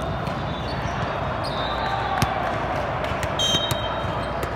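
Indoor volleyball tournament hall ambience: a steady din of many voices and play across the courts, with sharp ball smacks and bounces, the loudest a little past two seconds in, and a short high-pitched squeal about three and a half seconds in.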